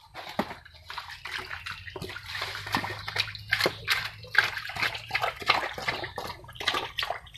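Shallow muddy water and wet mud splashing and squelching in a quick, irregular run as someone wades and digs through it.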